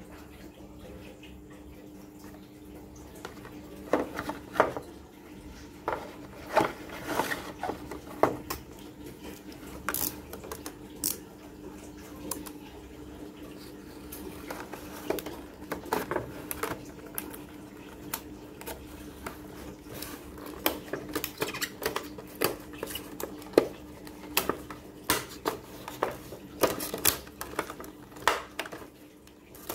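Stiff clear plastic blister packaging being handled and opened: irregular sharp crackles, clicks and snaps, starting about four seconds in. A steady low hum runs underneath.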